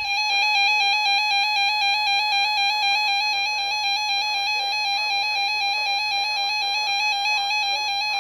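Electronic two-pitch warbling alert tone, a buzzy square-wave sound trilling rapidly and evenly between two close pitches, holding steady throughout.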